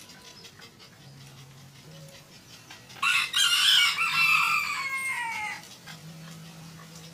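A rooster crowing once, about three seconds in, for two and a half seconds, the last drawn-out note falling in pitch.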